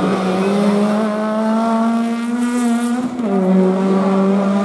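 A rally car's engine running hard at high revs as the car passes. The note climbs slowly, then drops sharply about three seconds in and holds steady at the lower pitch.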